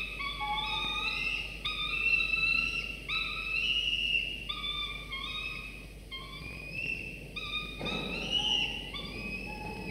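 Peregrine falcon chicks calling to be fed, a continuous run of repeated, slightly rising whistled notes, some overlapping, with a short rustle about eight seconds in.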